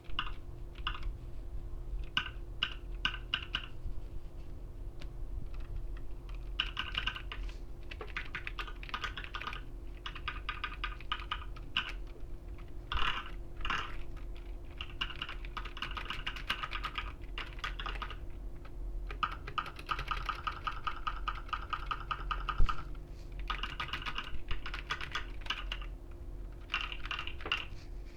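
Computer keyboard being typed on in quick runs of keystrokes, a few seconds at a time with short pauses between.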